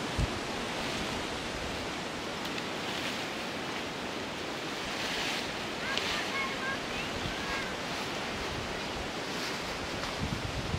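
Steady wind rushing on the microphone and through the dry grass and trees, with a few faint high chirps about halfway through.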